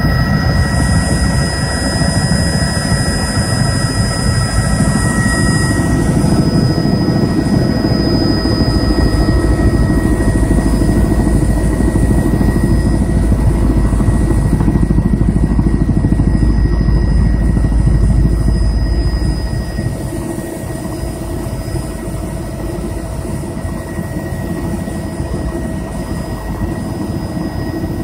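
Helicopter engine and rotor heard from inside the cabin: a steady heavy rumble with a thin, steady high whine. About twenty seconds in the deep thrum falls away and the noise drops in level as the helicopter sets down on the helipad.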